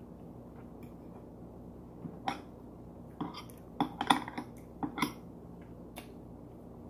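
Metal fork clinking and scraping against a plate of food in a handful of short clicks, most of them bunched near the middle.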